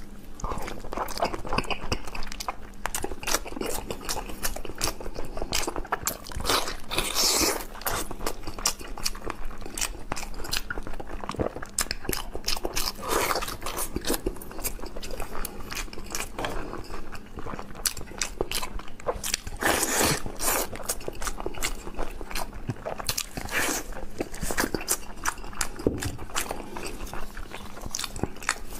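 Close-miked wet eating sounds from a man sucking in and chewing a chili-oil-dipped pork skin roll: thick smacking and slurping clicks throughout, with a few louder slurps.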